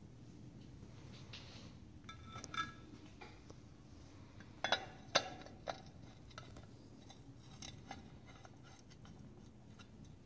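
Light metallic clinks and clicks as a chrome bullet cap and aluminum wheel collar are handled and seated in the center hole of a steel wheel. One ringing clink comes about two and a half seconds in, and a few sharp clicks follow around five seconds in.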